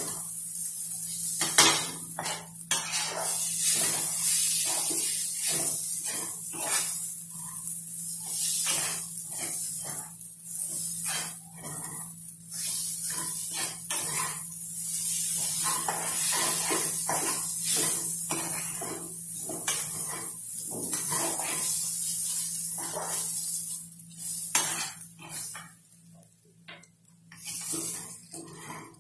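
A spatula scraping and stirring broken wheat as it fries in a nonstick wok, with many quick strokes against the pan over a steady hiss of frying. The stirring eases off for a moment near the end.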